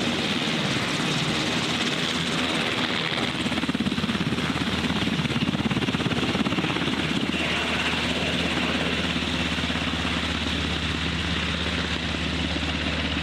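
UH-60 Black Hawk helicopter's main rotor and turbine engines running at takeoff power as it lifts off and flies away. The rotor noise swells a few seconds in, then settles into a steady low drone.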